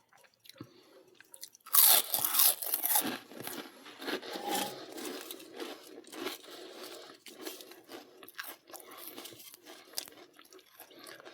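Crisp microwave-roasted papad (papadum) crunching: a loud crackle about two seconds in, then scattered smaller crunches. The crispness shows it is fully cooked.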